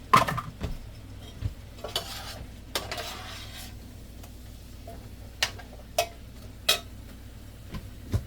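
A utensil knocking and scraping in a cooking pot as taro (gabi) is added and stirred into the vegetables: a string of sharp clinks with two short scrapes about two and three seconds in, over a steady low hum.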